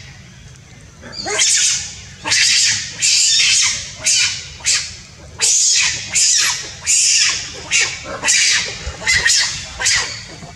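Long-tailed macaque calling over and over: about a dozen loud, high-pitched squeals, each under half a second, starting about a second in.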